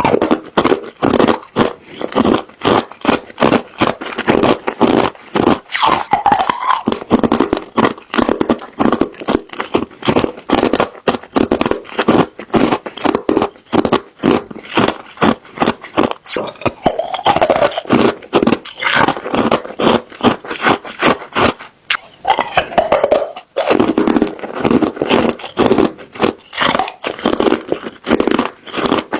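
Ice cubes being chewed: rapid, continuous crunching and cracking.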